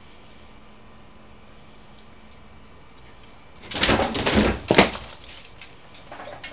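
A raccoon bolting off a trash bin fitted with an electric-fence wire after being shocked: a sudden burst of clattering and scrabbling about four seconds in, with one sharp crack within it, then a few fainter knocks.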